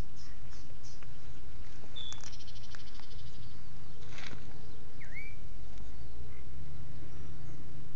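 Outdoor ambience with a steady low rumble of wind on the microphone and a few short bird calls, one of them a swooping call about five seconds in. A brief hiss comes about four seconds in.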